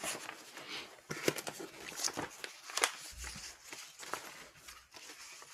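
Paper rustling with irregular small clicks and knocks as pages are handled, with a low thump about three seconds in, heard through a video call's audio.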